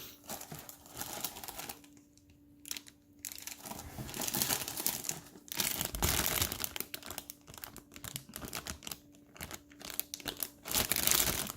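Plastic parts bags crinkling as model kit runners are handled and moved about, with irregular crackles that stop for a moment and then grow busier.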